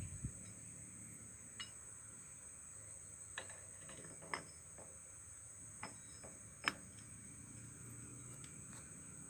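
Metal clutch parts of a Yamaha RX-King clicking and clinking as the clutch hub is fitted into the clutch housing by hand: a handful of short, sharp clinks a second or so apart, the loudest late on. The steady high chirring of crickets runs underneath.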